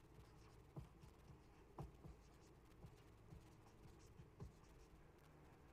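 Faint strokes and taps of a dry-erase marker writing on a whiteboard, a few short scratches spread through.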